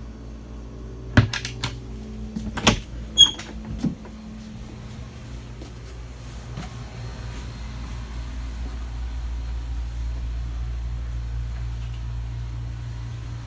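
A handful of sharp knocks and clatters in the first four seconds, like a storage lid or cabinet door being handled and shut, with a brief squeak about three seconds in. Under them a steady low hum runs on and grows slightly louder in the second half.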